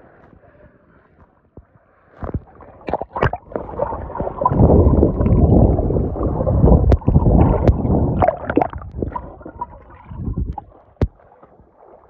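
Pool water sloshing and gurgling over a phone's microphone held at the waterline, growing loud in the middle, with a few sharp knocks.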